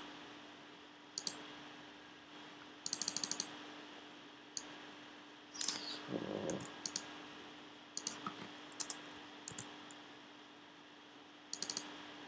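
Computer keyboard typing: scattered groups of key clicks, with a quick run of repeated keystrokes about three seconds in and a short low sound around the middle, over a faint steady hum.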